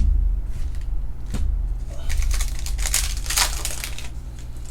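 Trading cards and their packaging being handled: a few light clicks and taps, then a stretch of rustling and crinkling about two seconds in, over a steady low hum.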